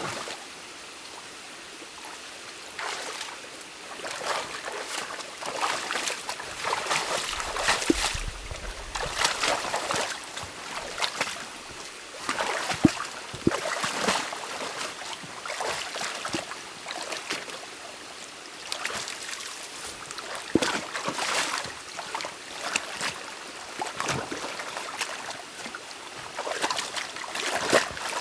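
Stream water splashing and sloshing in irregular bursts over a steady flow, as a beaver dam is pulled apart by hand and water runs through the breach.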